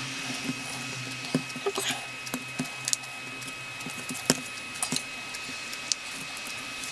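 Irregular small clicks and taps as fingers handle and turn over the metal chassis and small parts of a Märklin E63 model locomotive on a chipboard workbench, the sharpest click about four seconds in, over a steady faint hum.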